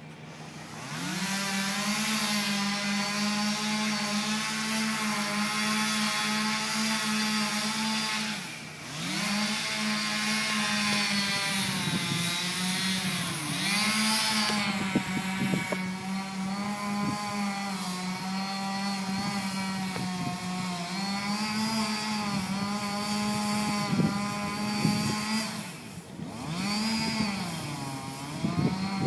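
Two-stroke chainsaw running at high revs, a steady high-pitched whine whose pitch sags and recovers a few times as the throttle or load changes.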